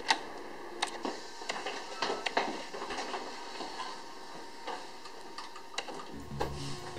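Elevator call button pressed with a sharp click, followed by scattered small clicks, knocks and shuffling as the elevator is boarded, over a faint steady hum. Background music with a low bass comes in about six seconds in.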